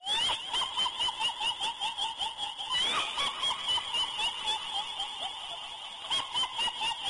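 High-pitched, rapid cackling laugh, a kuntilanak ghost-laugh sound effect, in quick squeaky syllables several times a second. It cuts in abruptly at the start and fades just after the end.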